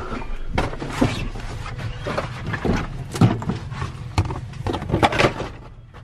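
Irregular knocks and clunks of handling and bumping inside a combine cab, the loudest a little past the middle and about a second before the end, over a steady low hum.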